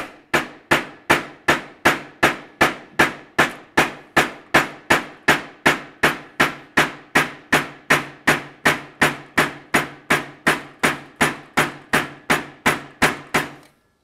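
Pick end of a Fairmount body hammer tapping a sheet-metal Tri-Five Chevy fender patch panel laid on a sandbag: steady, evenly spaced strikes about three a second, each with a short metallic ring. The blows land close together to stretch and raise the metal into a character line.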